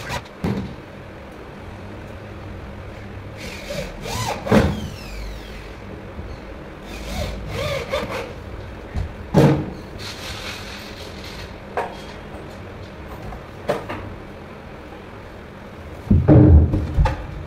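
Corded electric drill run in short bursts, boring into a laminated cabinet board and winding down between bursts, with knocks of the board and tool being handled. Heavy thumps come near the end.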